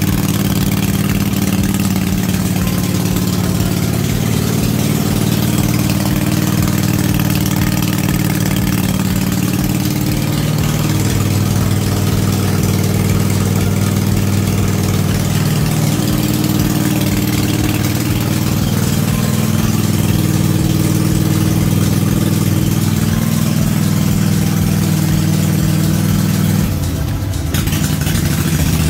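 Cub Cadet RZT-50 zero-turn mower engine running steadily. Its note shifts slightly about eleven seconds in and dips briefly near the end.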